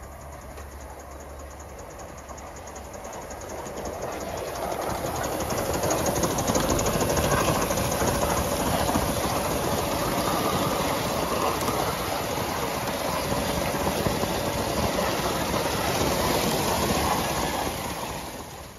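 Aster live-steam model of an LNER B1 locomotive, fitted with new O-ringed pistons, running past under steam with its wheels clattering on the rails. The sound builds over the first few seconds, stays loud, then cuts off suddenly near the end.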